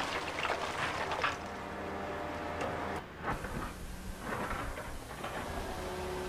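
Hydraulic excavator's engine running while stones clatter and tumble from its bucket onto a stone weir being repaired.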